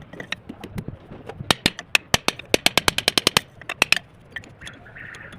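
A quick, irregular run of sharp knocks or clicks, densest from about a second and a half in to about four seconds in, then stopping.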